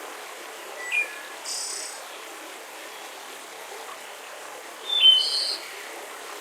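Forest birds chirping: a few short calls about a second in and a louder cluster of high chirps about five seconds in, over a steady hiss of forest ambience.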